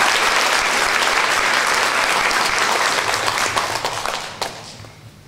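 Audience applauding, a dense steady clapping that thins out about three seconds in and dies away to a few scattered claps near the end.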